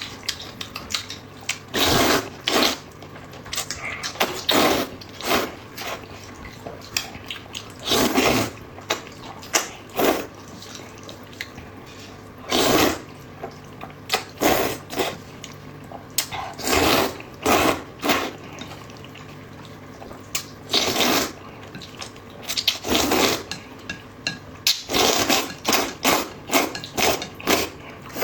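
Close-miked eating of hot dry noodles: loud wet slurps and chewing in irregular bursts, some slurps lasting up to about a second.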